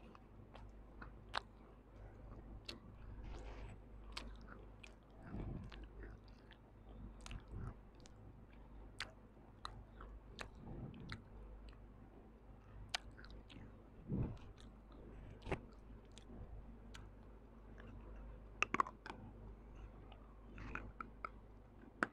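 Close-miked chewing of something hard and brittle, with sharp crunches breaking through the steady mouth sounds every second or two and a louder cluster of crunches near the end.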